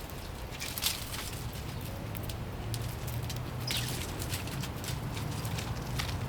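A couple of short, high bird chirps, one falling in pitch about two-thirds of the way through, with scattered light ticks and pattering over a steady low rumble.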